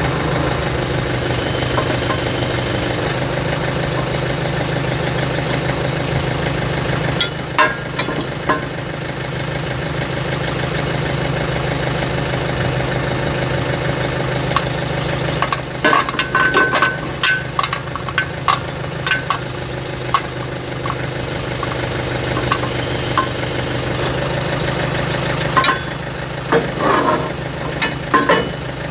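Backhoe engine running steadily at idle, with several short runs of sharp metallic clicks and knocks about a third, a half and nine-tenths of the way through.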